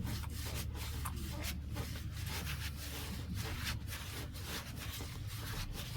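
Grease being wiped off a car wheel by hand, in repeated rubbing strokes a few times a second, over a steady low hum.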